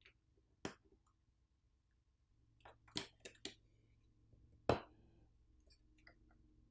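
A handful of small sharp clicks as smartphone flex-cable connectors are unclipped and the phone's subboard is lifted out of its frame. There is one click under a second in, a quick run of three at about three seconds, and the loudest near the middle.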